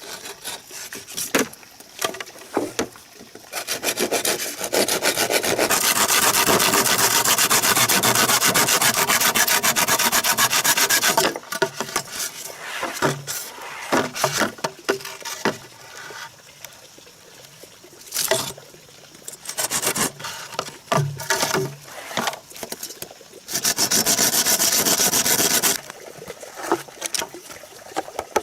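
Saw cutting through bamboo in two long spells, the second shorter and near the end, with sharp knocks of bamboo being handled in between.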